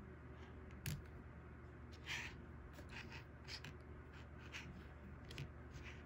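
Faint handling noise of a small diecast metal Matchbox toy snowmobile: a sharp click about a second in, a short scrape about two seconds in, then several light taps and clicks as it is moved about on a play mat.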